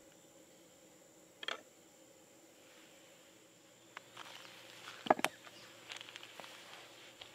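Bare tomahawk rib bone set down on a round wooden cutting board: a sharp double knock a little past halfway, with light handling rustles around it. Earlier, about a second and a half in, a short scrape of a knife drawn through the meat, over a faint steady high whine.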